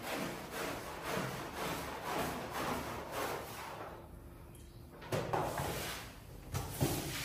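Repeated strokes of a cleaning tool worked across a wet, dirty shaggy rug, about two a second. They pause briefly, then a knock about five seconds in, followed by irregular knocks and handling sounds.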